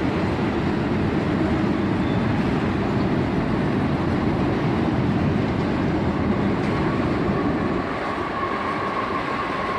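Freight train rolling past at close range: a steady, continuous rumble of wheels and cars on the rails. A faint steady whine joins in about two-thirds of the way through.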